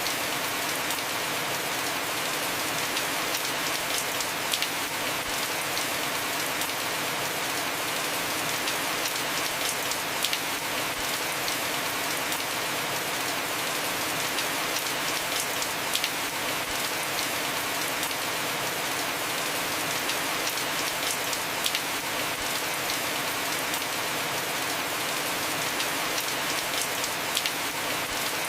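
Heavy rain falling steadily on a house roof, an even hiss of drops, with a sharper single tap about every five or six seconds.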